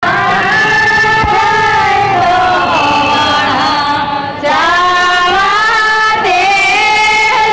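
A chorus of women singing a traditional Gujarati wedding song (lagna geet) in long held, sliding notes, with a brief drop about four seconds in.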